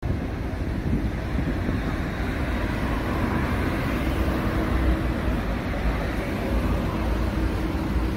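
Road traffic: cars driving past in a steady rumble of engines and tyres.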